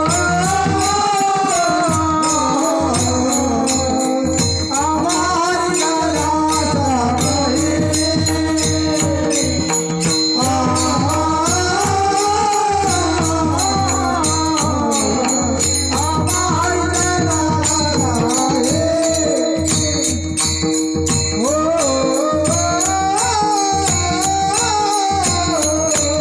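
Marathi devotional kirtan singing: a voice sings long, slowly rising and falling phrases over a steady drone, with small hand cymbals jingling in an even beat throughout.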